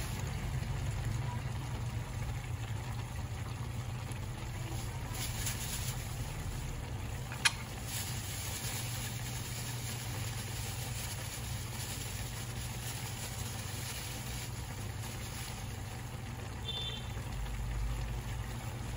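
Pan of chicken soup simmering on a stove burner: a steady low rumble throughout, with one sharp click about seven and a half seconds in.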